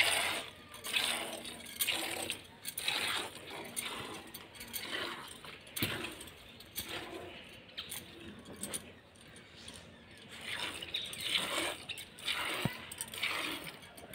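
Cow's milk squirting into a plastic bucket during hand milking, in short rhythmic strokes of about two a second.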